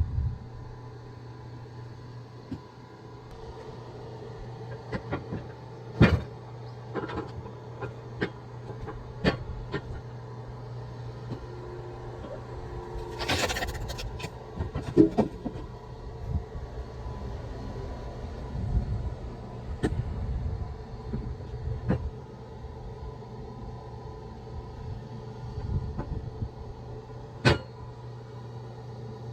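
Scattered sharp wooden knocks every few seconds, from firewood being split and handled, over a steady low motor hum.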